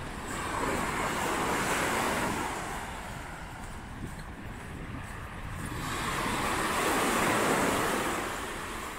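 Lake Michigan waves washing onto the beach, swelling up and falling back twice, with wind buffeting the microphone.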